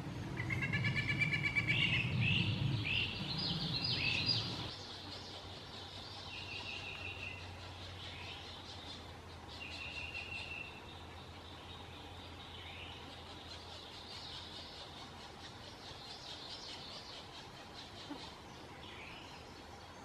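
Pileated woodpecker nestlings begging from the nest cavity: a fast, buzzy, rattling call, then quick down-slurred notes and short trills every few seconds. A low rumble runs under the first four seconds.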